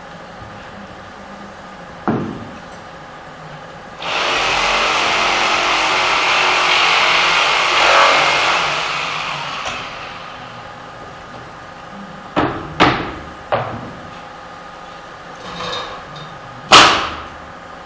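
Pallet assembly at a nailing bench: a loud steady hiss starts suddenly, runs for about six seconds and fades out, then wooden boards knock sharply, three times in quick succession and once more, loudest, near the end.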